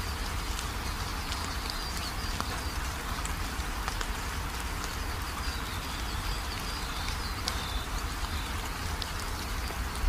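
Steady rain falling on a corrugated roof and pouring off its edge, with scattered drops ticking through the even hiss.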